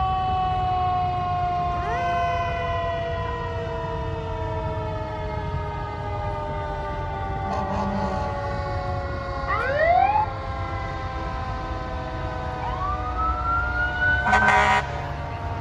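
Several fire engine sirens sounding together. Their pitch slowly winds down across the whole stretch, while one is wound up again now and then, about 2, 10 and 13 seconds in. A short horn blast comes near the end, over the low rumble of truck engines.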